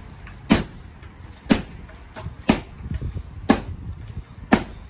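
A long metal bar or hammer struck repeatedly into a wall being demolished: five sharp bangs, evenly about one a second.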